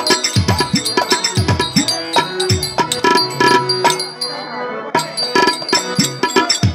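Live folk-theatre accompaniment: a hand-played drum beats a fast rhythm of strokes whose bass pitch bends downward, over a held tone, with sharp metallic clicks. The playing thins out briefly about four seconds in, then picks up again.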